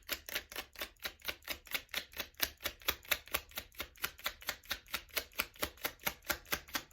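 A deck of Lenormand cards being shuffled by hand: a steady, even run of light card slaps, about six a second.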